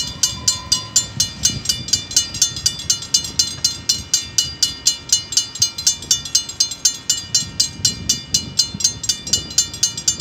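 Railway level-crossing warning bell ringing in rapid, evenly spaced strikes, about four a second, as the barrier arms rise after the train has cleared.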